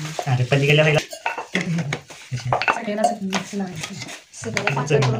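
Wooden rolling pin rolling out chapati dough on a wooden board, a low rumble in repeated back-and-forth strokes about half a second each, with light wooden knocks and clatter.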